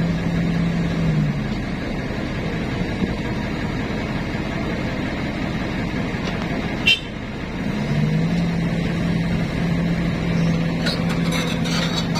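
A heavy engine running steadily, its hum dropping away about a second in and rising back near eight seconds, with one short sharp click just before seven seconds.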